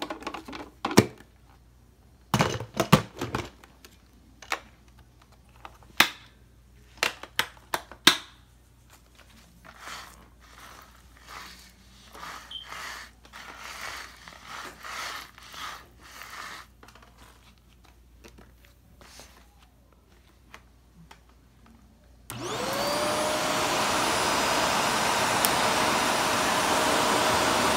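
A run of sharp clicks and knocks, then softer scuffing sounds; about 22 seconds in a Shark Navigator upright vacuum switches on, its motor rising quickly in pitch and settling into a loud, steady whine and rush of air.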